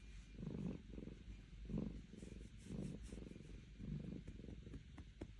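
Cat purring softly, the purr swelling and fading in pulses about once a second with each breath.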